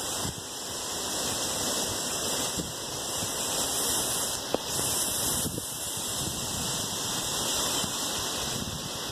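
Steady rushing noise of wind on the microphone, rising and falling unevenly, with a single faint tick about halfway through.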